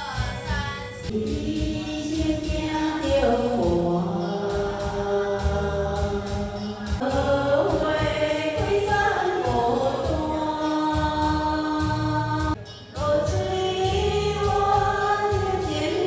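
A woman singing a slow melody with long held notes over karaoke backing music, with a short break about three-quarters of the way through.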